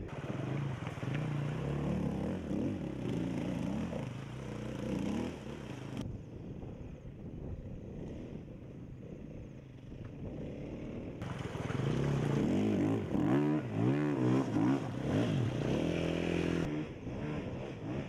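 Dirt bike engines revving, the pitch rising and falling with the throttle as the bikes climb rough ground. Quieter in the middle, and loudest in the second half.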